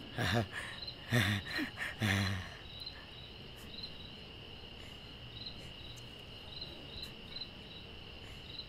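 Night crickets chirping: a steady high trill with short higher chirps repeating about once or twice a second. A voice is heard briefly in the first two seconds.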